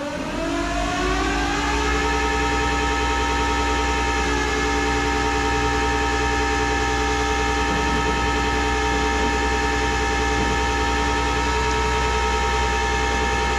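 Tow truck's hydraulic winch running, its whine rising over the first two seconds as it comes up to speed and then holding steady as it pulls the car up onto the bed on a soft recovery strap.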